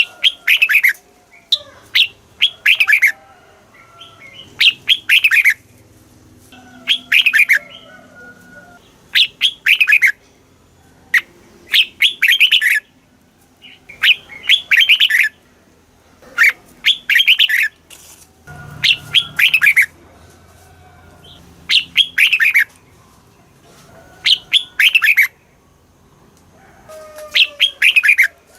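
Red-whiskered bulbul singing: short, bright warbled phrases of several quick notes, repeated about every two to three seconds.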